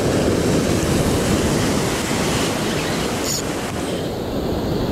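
Sea surf surging and breaking over shoreline rocks in a steady rush, with wind buffeting the microphone.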